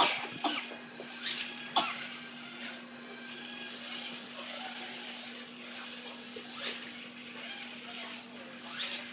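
Battery-powered toy car's small electric motor whirring steadily as it runs along a plastic track, with a few sharp clicks: several in the first two seconds, one about seven seconds in and one near the end.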